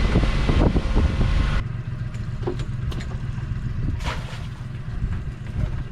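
Small motorboat under way: wind rushing on the microphone over a low rumble of motor and water. The rush cuts off sharply about a second and a half in, leaving a steady low rumble with a few light knocks.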